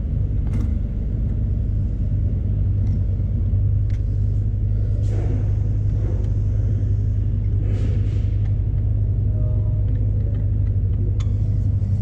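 A steady low mechanical hum runs throughout, with a few short metallic clicks and knocks from hand tools being worked at the engine mount.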